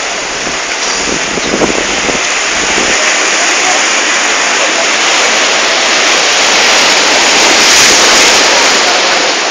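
Sea surf breaking and washing over shoreline rocks: a steady rushing noise that swells louder near the end. A few gusts of wind hit the phone's microphone between one and two seconds in.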